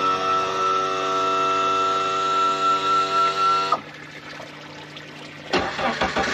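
A steady hum of several held tones that cuts off suddenly a little before four seconds in, followed by quiet. About a second and a half later, sharp clicks and rough noise begin as a Suzuki outboard is cranked over to start.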